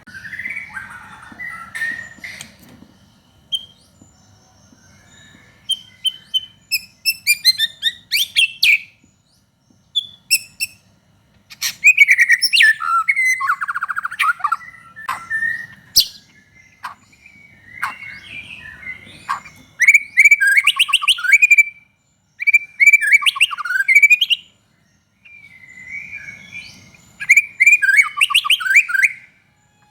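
White-rumped shama (murai batu) in full song: varied phrases of whistles and rapid trills come in bursts with short pauses between them. It is the vigorous 'gacor' song played as a lure to provoke captive shamas into singing.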